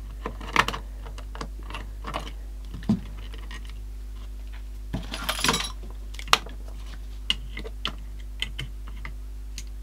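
Scattered small clicks and taps of screwdrivers and small screws as the screws holding a transistor radio's speaker bracket are undone and the tools are laid down. There is a brief rustling scrape about five seconds in, over a steady low hum.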